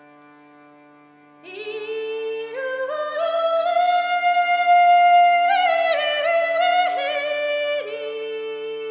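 Opening of a Swedish traditional folk tune: a harmonium holds a steady drone chord. About a second and a half in, a single melody line enters over it and climbs step by step to a held high note. It ornaments around that note, then settles back down to its starting pitch near the end.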